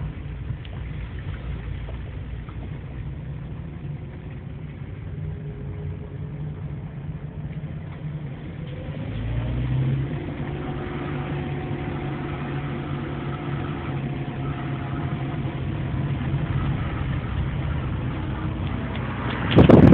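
Fiat Palio ELX 1.4 car running with a steady low rumble. About halfway through, the pitch rises briefly as it picks up speed, then steady higher tones hold for the rest of the time.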